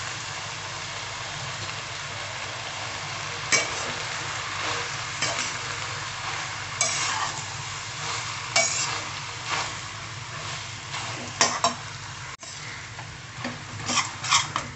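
Noodles and vegetables in sauce sizzling in a hot pan while being stirred, with a utensil scraping and knocking against the pan every second or two.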